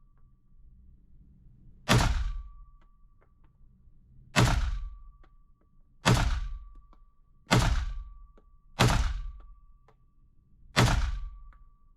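Six single gunshots fired at a steady, unhurried pace, about one every one and a half to two seconds. Most are followed by a brief high ringing tone.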